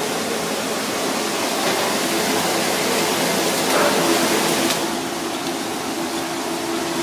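Steady rushing kitchen noise with a faint hum under it, swelling slightly about four seconds in.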